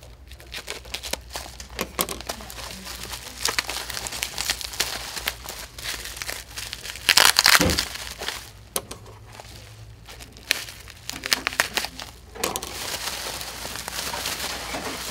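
Plastic bubble wrap crinkling and crackling as it is cut open with scissors and pulled off a plastic cover, with a louder crunch of handling about seven seconds in.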